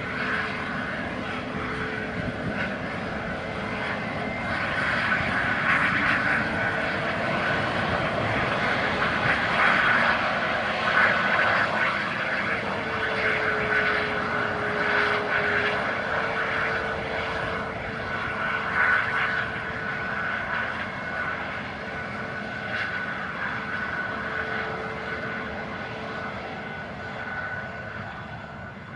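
Airbus A320neo jet engines running at taxi power as the airliner rolls past: a steady hum with a held whine and a higher tone above it, the lower whine dipping in pitch for a few seconds midway. It grows louder toward the middle and fades near the end as the aircraft turns away.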